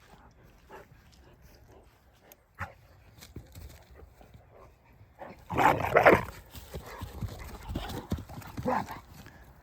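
Large mastiff-cross dog vocalizing, with a loud burst a little past halfway and a shorter, softer one near the end. Faint knocks and rustling are heard between them.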